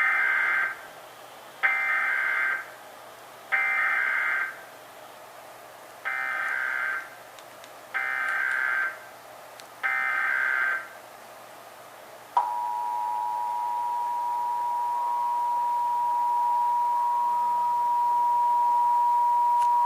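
Emergency Alert System test tones. Six short bursts of SAME digital data tones come about two seconds apart. About a second and a half later the EAS two-tone attention signal starts and holds steady to the end.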